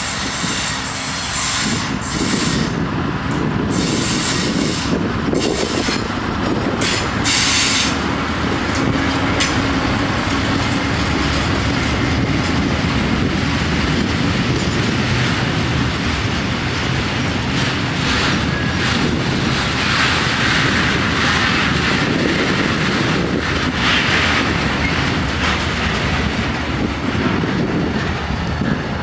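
A diesel locomotive and a train of tank wagons rolling past. The wheels clatter over the rail joints, with brief high screeches from the wheels during the first eight seconds or so.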